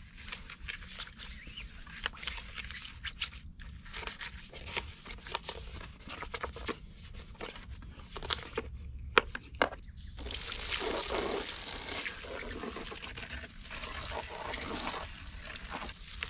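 Brush scrubbing a red plastic chicken waterer base, many short scratchy scrapes, for about the first ten seconds. Then a garden hose sprays water onto the waterer with a steady hiss.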